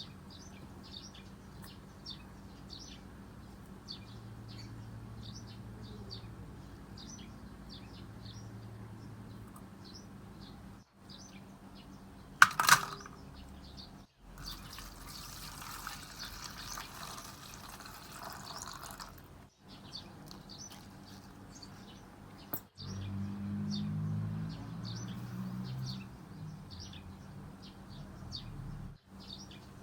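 Short bird chirps repeat throughout over faint room noise. A sharp clatter comes about twelve seconds in, followed by a few seconds of rushing noise like pouring or running water. The sound breaks off abruptly several times.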